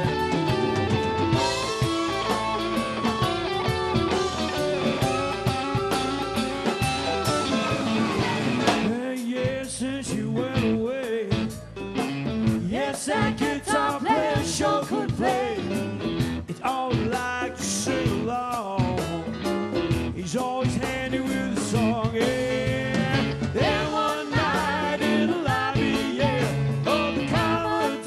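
Live rock band playing an instrumental passage. A lead electric guitar holds a long note that slides up near the start and falls away about eight seconds in, then plays shorter phrases over keyboard, bass and drums.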